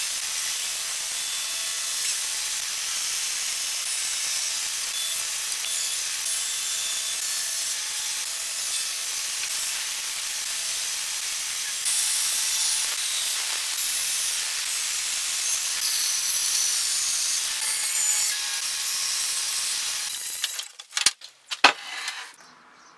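Bandsaw cutting a curve through a weathered wooden board: a steady hiss of the blade running through the wood. About twenty seconds in the sawing stops, and a few sharp knocks follow.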